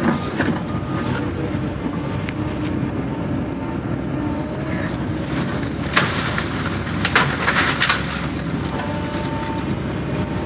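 Doosan excavator's diesel engine running steadily, heard from inside the cab. About six seconds in comes a burst of cracking and snapping lasting a couple of seconds as the bucket and thumb tear through dead branches and brush.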